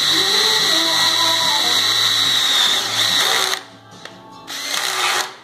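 DeWalt drill boring through a half-inch steel plate with an oil-lubricated twist bit, running steadily with a high-pitched whine from the bit cutting. It stops about three and a half seconds in, runs briefly again, and stops near the end.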